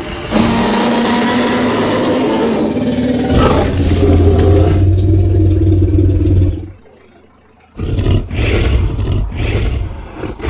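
Dinosaur roar sound effects: a long roar over the first three seconds, then a deeper, lower roar. After a short lull about seven seconds in comes a run of shorter, uneven growls.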